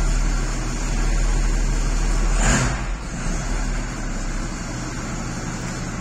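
SAME Antares tractor's diesel engine running, heard from inside the cab. It runs louder for about the first two and a half seconds, then a brief rushing noise, and it settles to a quieter steady run.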